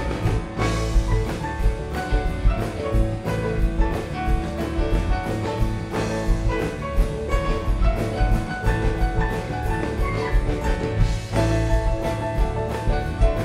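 Live rock band playing an instrumental passage: electric guitars and keyboards over a drum kit keeping a steady beat.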